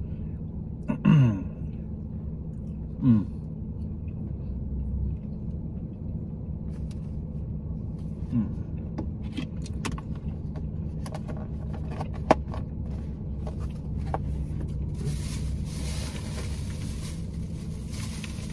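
Steady low hum inside a parked car, with two short falling voice sounds about one and three seconds in. Scattered light clicks and taps of a plastic takeout tray and fork follow, then a rustling hiss near the end as someone shifts in the seat.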